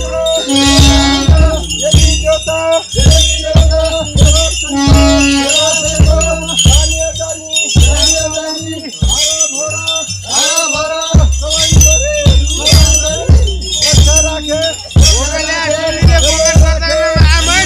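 Drumming with jingling bells: a drum strikes about twice a second under steady jingling, with a wavering melody line over it.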